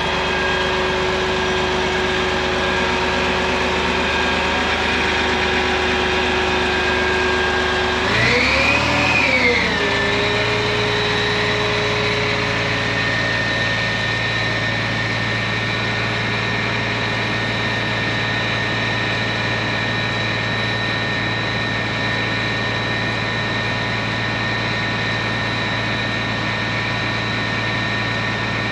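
Fire ladder truck's diesel engine running steadily to power the aerial ladder as it is raised, with a steady whine over it. About eight seconds in, the engine pitch swells up and back down, then settles a little higher than before.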